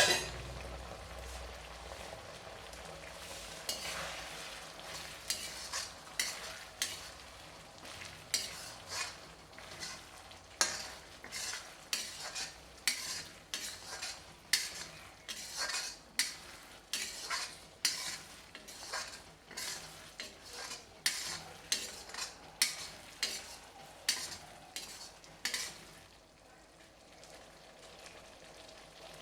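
Mutton curry frying and sizzling in a pan while a utensil stirs it, scraping the pan in quick, repeated strokes. The stirring stops near the end, leaving a quieter sizzle.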